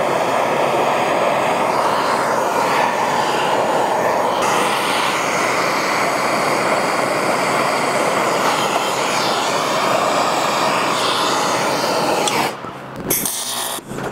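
Handheld gas torch burning with a steady rushing hiss as it preheats a cast aluminium motor end bell before welding. The flame shuts off about twelve and a half seconds in, followed by a few light clicks.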